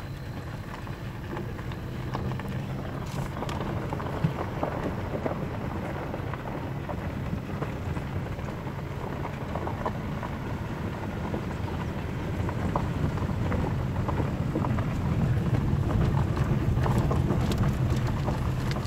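Car tyres rolling over a dirt road, heard from inside the cabin: a steady low rumble with small stones crackling and ticking under the car, growing louder toward the end.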